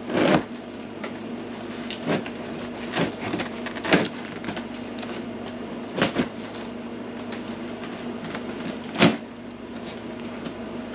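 Box cutter slicing the packing tape on a large cardboard box, with sharp scrapes and knocks against the cardboard every second or two, over the steady hum of an air conditioner.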